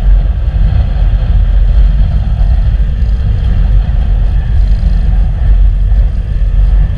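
Steady, loud, low rumble of a vehicle on the move: road and engine noise mixed with wind buffeting on an onboard microphone.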